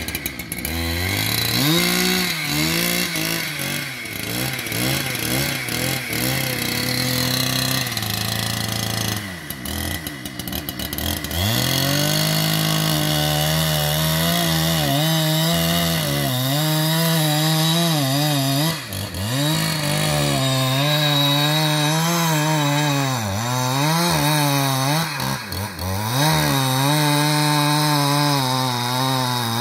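Two-stroke chainsaw cutting into a tree trunk. Its engine pitch sags under load and picks up again over and over, with a brief easing-off about a third of the way in.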